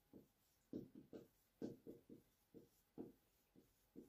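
Faint marker strokes on a whiteboard: a dozen or so short, irregular scratches as letters are written.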